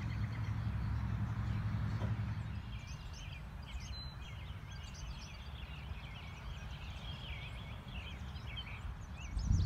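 Wind rumbling on the microphone, heaviest in the first two seconds and building again at the end, under several birds chirping and singing with short, quick calls.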